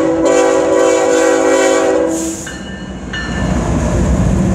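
CN freight diesel locomotive's air horn sounding one long blast, several tones at once, that stops about two seconds in. Then the locomotive's engine and wheels grow louder as it passes close by.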